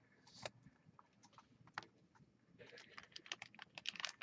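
Faint clicks and light taps of trading cards being handled: a few isolated ticks, then a quicker run of small clicks from about halfway through.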